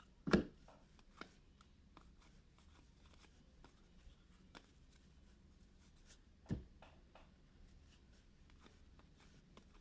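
Trading cards being handled and sorted: quiet sliding and flicking of cards with scattered light clicks, and two soft thumps, one right at the start and one about six and a half seconds in.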